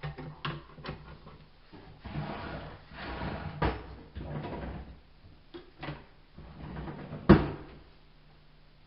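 Irregular knocks, clicks and rustling of tools and parts being handled on a workbench, over a steady low hum. One sharp knock about seven seconds in is the loudest.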